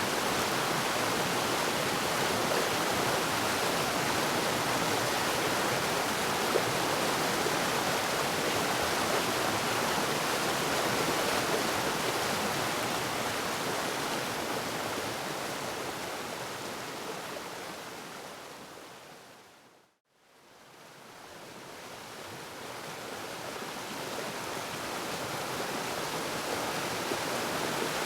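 Waterfall rushing with a steady, even roar of falling water; about two-thirds of the way through it fades out to silence and then fades back in.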